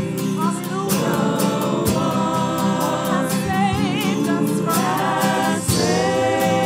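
Gospel worship song: a woman sings lead into a microphone, backed by acoustic guitar, with a wavering vibrato on a held note about halfway through.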